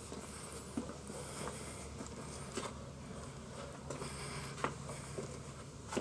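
Quiet outdoor background with a steady low hum, and a few soft footsteps and handling clicks on block paving spread through.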